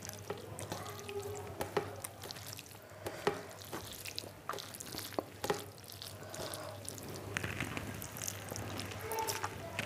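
Fingers mixing rice with masoor dal on a metal plate: soft wet squishing with scattered light clicks. A mouthful of the mixed rice is taken near the end.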